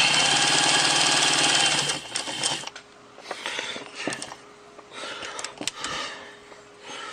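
Pfaff 130 sewing machine running fast with a rapid, even stitching rhythm while sewing a long basting stitch, stopping abruptly about two seconds in. After it stops come a few light clicks and rustles over a faint steady hum.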